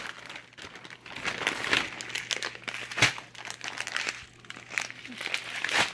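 Freeze-dried food pouches being handled and crinkled, with irregular rustling throughout. There are two sharper clicks, one about halfway through and one near the end.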